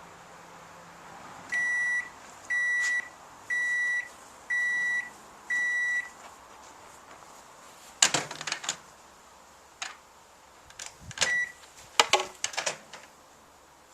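Microwave oven beeping five times, about a second apart: the end-of-cycle signal that the timer has run out. Later come a few sharp clicks and a clatter, with one more short beep.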